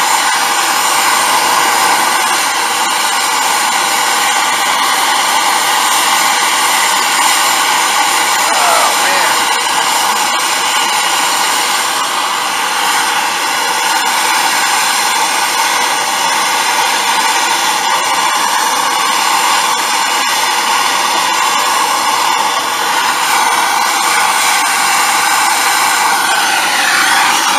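Steady hiss of a handheld yellow-cylinder MAP-gas torch burning, its flame heating a copper refrigerant line joint at an AC condenser's service valve. Near the end the hiss sweeps downward in tone as the torch is moved.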